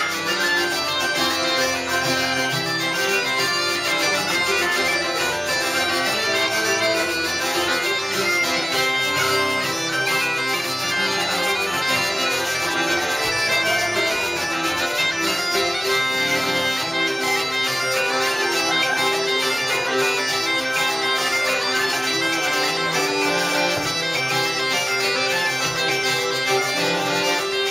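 Bagpipes playing a tune over their steady, unbroken drones, as part of live band music.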